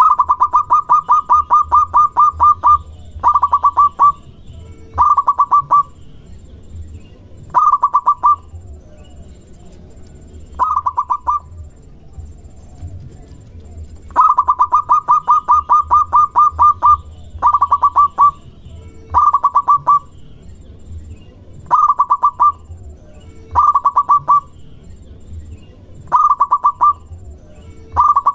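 Local-strain zebra dove (perkutut) singing: phrases of quick, staccato coos around a dozen times, most phrases about a second long, with two longer rolling runs of about three seconds, one at the start and one about halfway.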